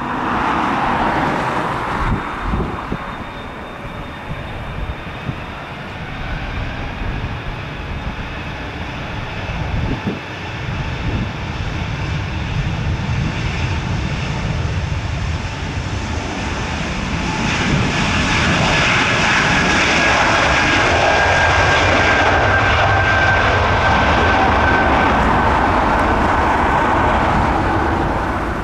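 Airbus A220 jet's Pratt & Whitney PW1500G geared turbofans running at low thrust, then spooling up about 17 seconds in to takeoff power: a loud, steady rumble with a high whine that drifts slightly lower in pitch as the jet rolls away down the runway.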